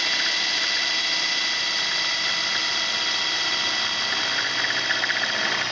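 Power drill running steadily with a 9/16-inch hole saw and its pilot bit, boring straight through a metal door: a constant high whine.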